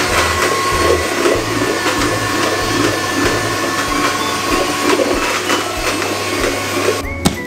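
Electric hand mixer running steadily, a motor whine over a rushing noise. It cuts off about seven seconds in.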